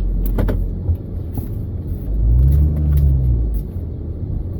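Minivan running at low speed, with a steady low rumble; the engine note swells and falls away again about two seconds in.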